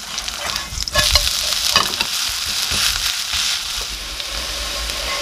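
Shredded zucchini and potato pancake sizzling in hot oil in a frying pan, a steady high hiss. A wooden spatula scrapes and knocks against the pan a few times.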